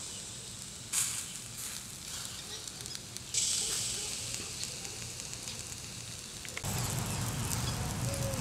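Glazed quail sizzling on a charcoal grill grate: a steady hiss with scattered crackles. The sizzle flares up about a second in and again a little past three seconds. A low rumble joins about two-thirds of the way through.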